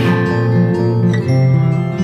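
Instrumental background music led by a plucked guitar, its notes changing partway through.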